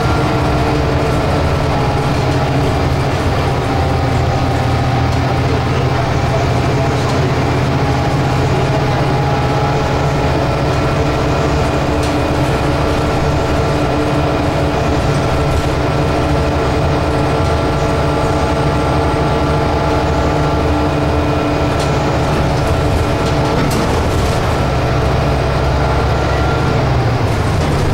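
Interior sound of a Scania K320UB city bus under way: its five-cylinder diesel and ZF Ecolife automatic gearbox running at a steady speed, a loud drone with a held whine over road and rattle noise. The pitch shifts slightly near the end, and there is a single short knock a few seconds before that.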